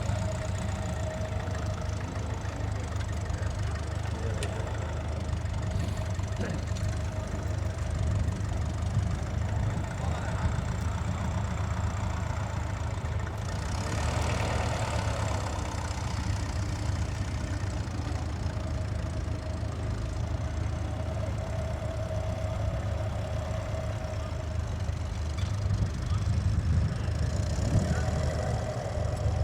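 Ferguson TE20 tractor's four-cylinder diesel engine running steadily under load as it pulls a two-furrow plough through the ground.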